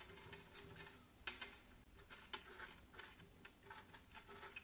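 Faint strokes and taps of a felt-tip pen writing digits on paper, short irregular scratches spaced a fraction of a second to a second apart.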